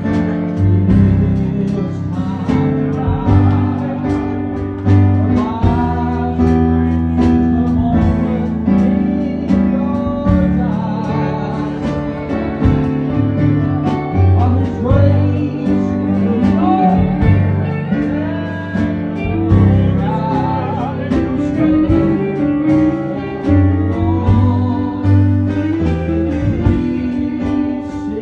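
Gospel song played by a band: guitars, including a sliding steel guitar, over a steady beat, with singing.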